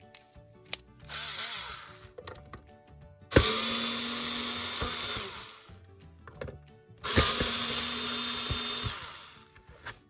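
Cordless drill-driver running in short bursts as it backs screws out of the plastic base of an ultrasonic cleaner. There is a brief faint burst about a second in, then two runs of about two seconds each, each starting with a click.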